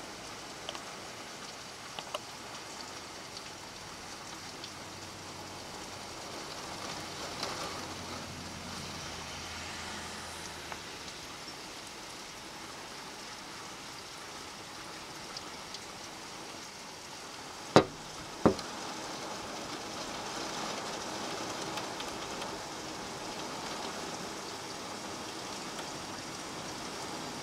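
Heavy rain falling steadily, with rainwater pouring over the edge of an overflowing roof gutter; the rain grows a little louder in the last third. Two sharp knocks under a second apart sound about two-thirds of the way through.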